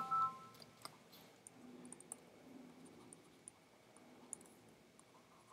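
Faint, scattered clicks of a stylus tapping on a writing tablet as handwriting is added, a few irregular taps a second apart.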